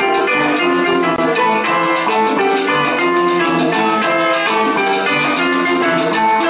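Live salsa-style band music: congas, bongos and timbales keep a steady beat under bright keyboard notes and electric bass.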